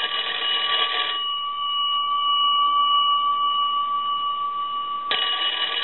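The twin metal gongs of a Kellogg wooden wall telephone's ringer are ringing in a normal ring cycle. A burst of rapid ringing stops about a second in, the gongs hum as they fade for about four seconds, and the next ring starts about five seconds in.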